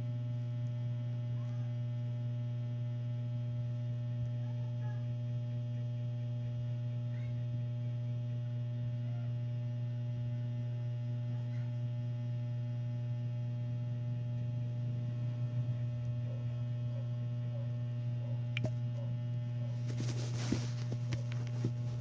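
Steady low electrical hum with even overtones, broken only by a single click and a short burst of noise near the end.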